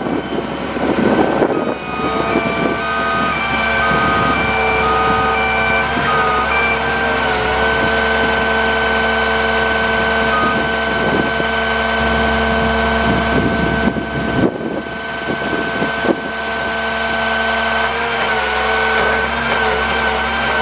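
Hydraulic outrigger of a GMC C7500 digger derrick truck being lowered with the engine running: the hydraulic system whines steadily, its pitch wavering as the lever is worked. Short repeated beeps sound through roughly the first ten seconds.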